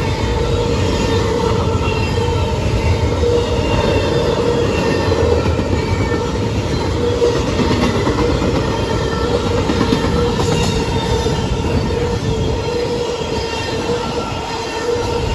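Double-stack intermodal freight cars rolling past on the rails: a steady, loud rumble of steel wheels, with a continuous wheel squeal over it.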